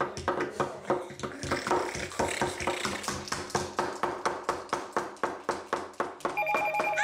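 Plastic toys tapping and knocking on a wooden tabletop, quick repeated taps about five or six a second. About six seconds in, a steady electronic tone with a pulsing beep starts.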